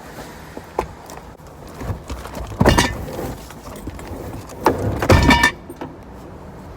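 Heavy flat-pack bed-frame boxes being loaded into a car: two loud bouts of knocking and scraping about two seconds apart, the second with a ringing, metallic edge.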